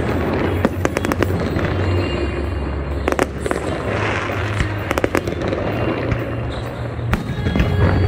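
Fireworks display going off: a rapid string of sharp bangs and crackles over a continuous rumble, with music playing underneath.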